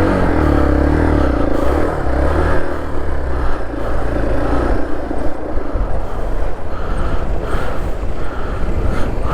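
A motor vehicle engine running close by. Its pitch rises and falls for the first few seconds, then it settles into a steadier rumble.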